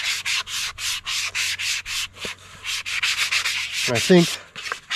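Sandpaper rubbed by hand back and forth over the end of a weathered wooden canoe paddle blade, about four strokes a second with a brief pause midway, smoothing the end grain so the varnish will seal it. A short wavering pitched sound cuts in about four seconds in.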